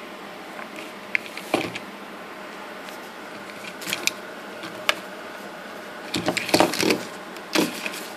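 Handling noise: scattered clicks, taps and short rustles, with a busier flurry about six to seven seconds in, over a steady background hiss.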